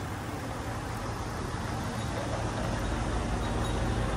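Steady low rumble of a road vehicle's engine running close by, growing a little louder over the second half.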